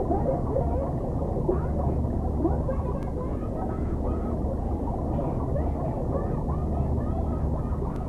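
A boy's shouting, heavily muffled and warped by an underwater sound effect, heard as a warbling, gurgling mass over a steady low rumble.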